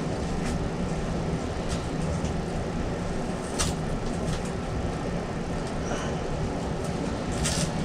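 Steady low hum with a few light clicks and taps of handling.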